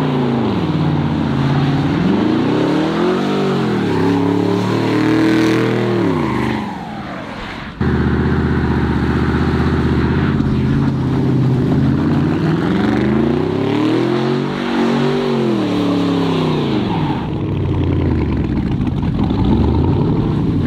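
Lifted Chevrolet Silverado pickup's engine revving up and falling back again and again as the truck spins its tyres in a burnout and donuts on wet pavement. There is an abrupt jump in the sound about eight seconds in.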